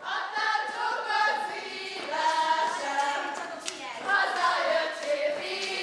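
A choir singing a song together, with high voices carrying the tune in long held notes; the singing starts abruptly.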